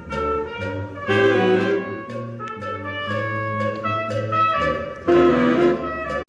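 Jazz band music with saxophones and brass: sustained horn chords over a steady bass line.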